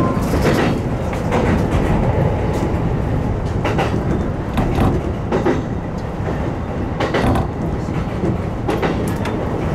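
JR Nambu Line electric commuter train running along the track, heard from the front car: a steady rumble with irregular clicks as the wheels pass over rail joints.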